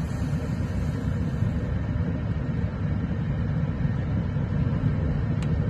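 Steady low rumble of a car driving, heard from inside the cabin, with a single short click near the end.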